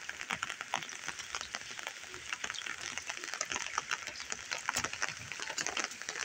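Steady rain falling on a concrete rooftop: an even hiss with many small patters of drops.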